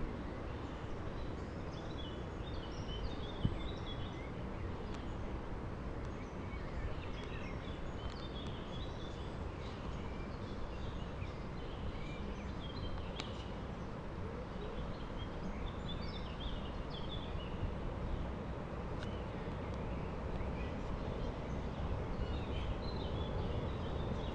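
Songbirds chirping repeatedly over a steady low rumble of outdoor background noise.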